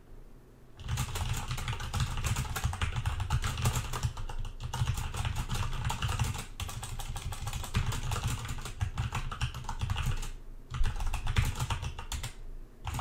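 Fast typing on a computer keyboard: a dense run of key clicks starting about a second in, a brief pause, then another burst of typing near the end.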